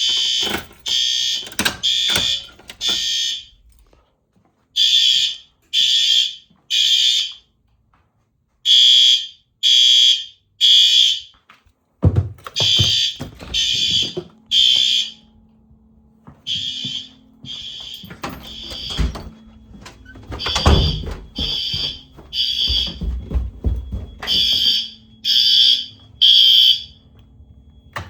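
Fire alarm horn strobes sounding the temporal-three evacuation pattern after a manual pull station is pulled: three half-second horn blasts, then a pause, repeating about every four seconds.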